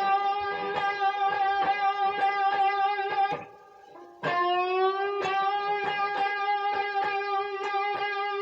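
A guitar note bent up from the minor third to the fourth and held, picked rapidly over and over. It breaks off briefly, then is bent up and picked the same way again.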